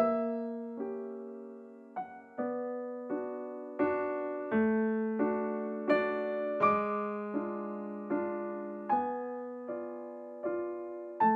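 Background piano music: a slow, gentle run of struck notes, each fading away, about one every 0.7 seconds over sustained lower notes.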